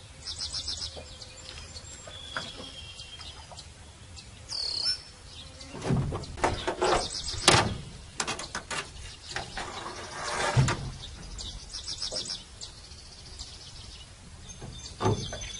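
Small birds chirping and trilling. From about six seconds in there are several sharp knocks and thuds, loudest around six to eight seconds and again near eleven, as the trotline is handled along the side of the metal boat.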